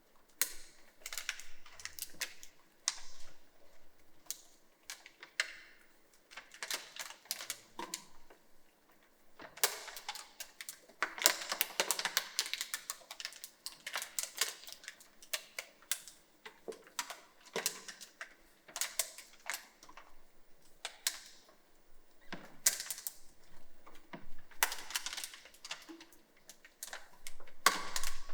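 Many irregular sharp clicks and taps, scattered at first and thickening into dense clusters about ten seconds in and again near the end.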